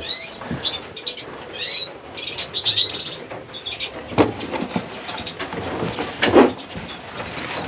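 Small finches, siskins and lesser redpolls, chirping and twittering with short high calls, with two louder short sounds about four and six and a half seconds in.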